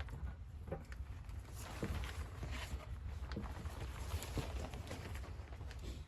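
Irregular soft knocks and crunches, several a second at times, over a steady low rumble.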